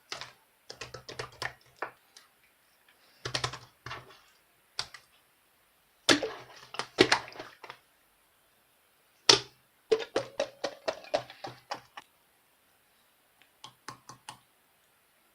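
Clear slime being squished and pressed by hand, giving bursts of rapid clicking and popping as air pockets break, with short pauses between handfuls; the loudest bursts come about six and nine seconds in.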